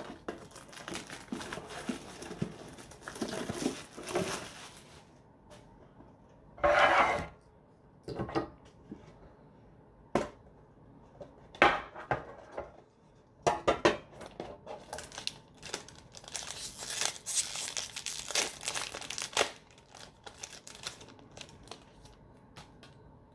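Foil wrappers of Yu-Gi-Oh! trading card mega packs crinkling and tearing as they are handled and opened by hand. Irregular crackles, with the loudest burst about a third of the way in and a long stretch of dense crinkling in the second half.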